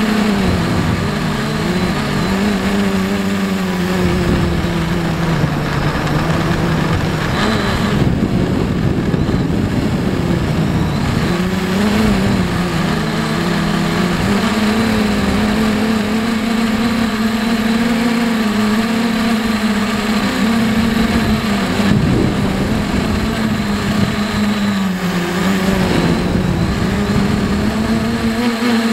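Electric motors and propellers of an H-frame FPV quadcopter buzzing as heard from its onboard camera. The pitch dips and climbs again several times as the throttle changes, over a rough low rumble.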